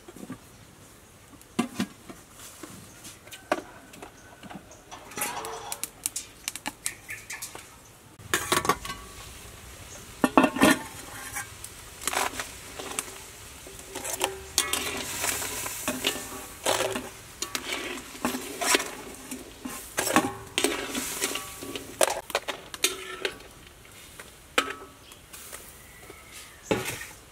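Metal utensils knocking and scraping against a steel wok while mud crabs fry in it: irregular clinks and clatters that come thicker after about eight seconds.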